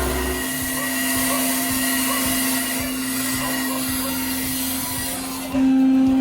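A motor running steadily with a whining hum and hiss, getting louder about five and a half seconds in.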